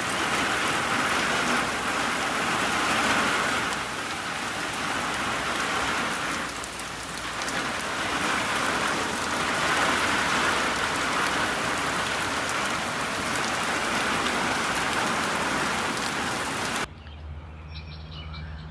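Heavy rain pouring down in a thunderstorm, a dense steady hiss of drops hitting a surface. It cuts off suddenly near the end.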